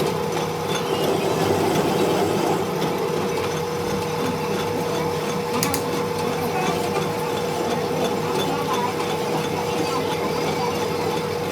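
A workshop machine running steadily: a constant hum with a steady mid-pitched tone and no pauses.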